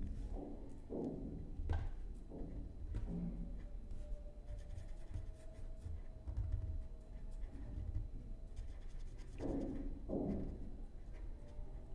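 Scratching and rubbing of a pen writing on paper, with a few soft thumps.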